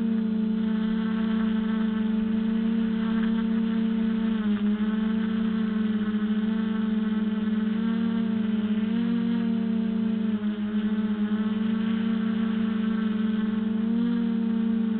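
Quadcopter's electric motors and propellers buzzing steadily, heard up close from the camera on board. The pitch dips and rises slightly a few times.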